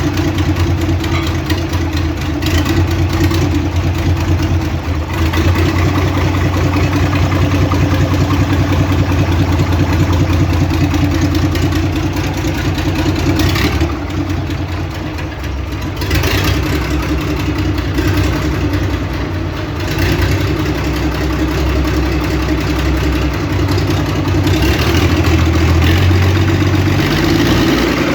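Diesel engine of a Mercedes-Benz 1924 truck running steadily at idle, easing off briefly twice, and starting to rev up at the very end.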